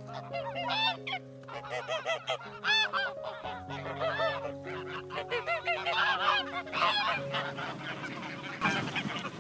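Greylag geese honking: many short calls in quick succession, one after another.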